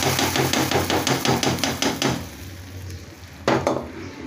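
A metal spoon clinks rapidly against a cooking pot, about six taps a second for two seconds, as a hot garlic-and-chili oil tempering is stirred into dal. One sharp knock follows about three and a half seconds in.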